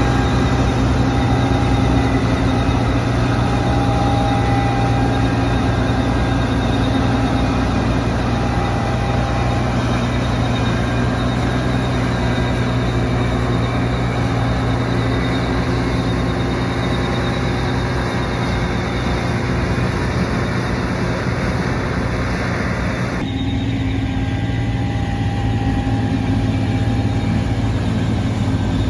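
New Holland CR11 rotary combine running steadily while harvesting, a constant engine-and-machinery drone with a low hum. About 23 seconds in the sound abruptly turns duller, losing much of its hiss.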